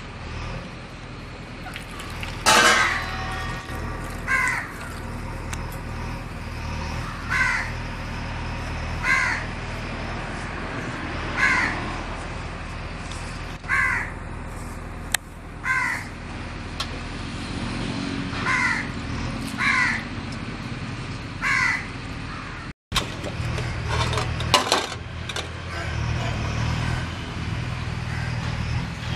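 A crow cawing over and over, one short caw every two seconds or so, about a dozen in all, over a steady low hum. The sound cuts out for an instant about two-thirds of the way through.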